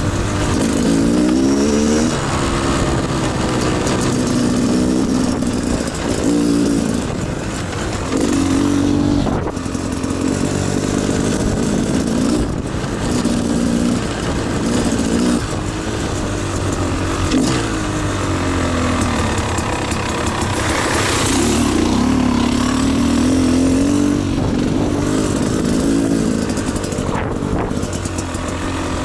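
Beta Xtrainer two-stroke dirt bike engine under way, revving up and falling back again and again with the throttle as the bike is ridden along a dirt trail.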